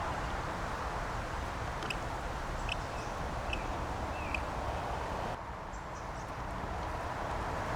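Outdoor background noise with a small bird chirping four times in short, high notes in the middle, one of them sliding in pitch. About five seconds in, the higher hiss drops away abruptly.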